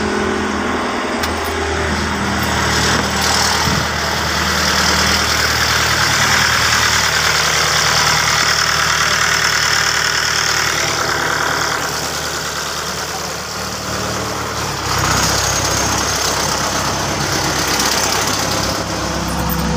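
Perkins diesel engine running steadily at idle, its fuel pump working again after a blown fuse was replaced. The engine's tone shifts about fifteen seconds in.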